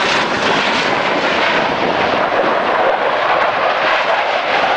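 F-16 Fighting Falcon fighter jet flying past, its jet engine making a loud, steady rushing noise.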